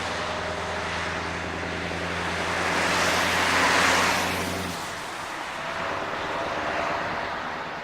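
A vehicle driving past: road noise swells to a peak about four seconds in and fades. Under it runs a steady low engine hum that cuts off just before five seconds in.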